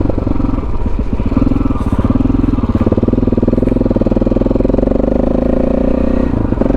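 KTM 640 Adventure R's single-cylinder four-stroke engine running steadily under way, heard from the riding bike, briefly dipping about six and a half seconds in.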